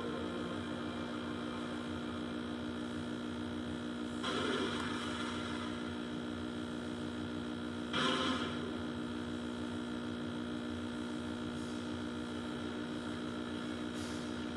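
Steady electrical mains hum from an old CRT television, with two brief louder sounds about four and eight seconds in.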